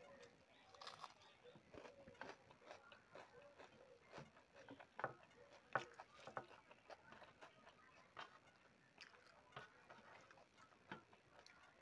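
Faint eating sounds: fingers mixing rice and curry on a metal plate, with soft wet chewing and scattered small clicks. Two sharper clicks stand out about five and six seconds in.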